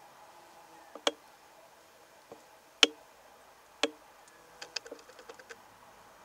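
Three sharp ticks about a second apart, then a quick run of fainter ticks near the end, over a faint steady hum.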